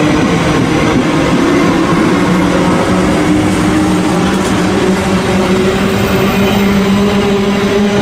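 Recording of a real NS Koploper (ICM) electric multiple unit pulling away from a station: steady rolling noise with traction-motor tones that climb slowly in pitch as it gathers speed.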